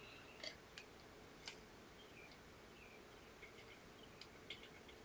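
Near silence: faint room tone with a few soft clicks and small squeaks from a piping bag being squeezed while piping frosting stars.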